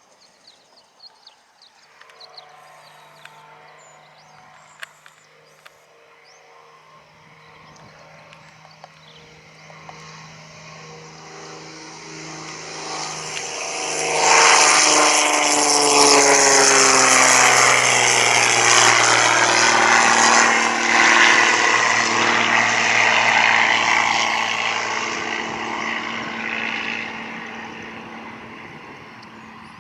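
Propeller airplane passing close by. Its engine sound grows over several seconds, becomes loud about halfway through with its pitch gliding down as it goes past, then fades away.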